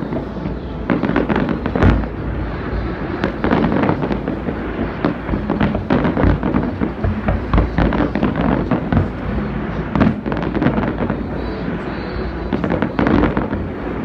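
Fireworks display: a rapid, continuous string of pops and bangs from comets and small aerial shells fired in quick succession, with the loudest bang about two seconds in.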